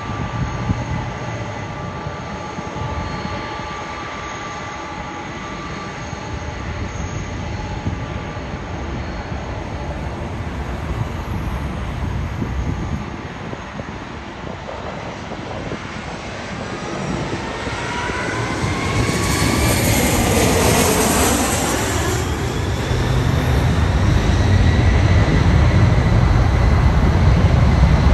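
Jet engines of a taxiing Boeing 767-300ER: a low rumble with a thin steady whine, growing louder through the last ten seconds. About two-thirds through, a louder rushing passage brings whines falling in pitch as jet noise passes close.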